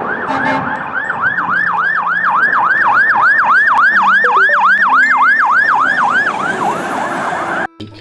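Toy fire engine's electronic siren sounding a fast yelp, a quick rising and falling wail about three times a second, which cuts off suddenly near the end.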